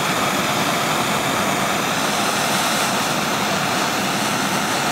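Handheld gas torch burning with a steady, even hiss, its blue flame playing on the steel jaw of an adjustable wrench to heat a bent lip before it is hammered straight.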